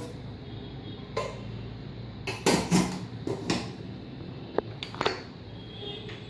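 Metal cooking vessels knocking and clattering against a pressure cooker as the vessel is set inside: a handful of separate knocks, the loudest cluster a little before the middle.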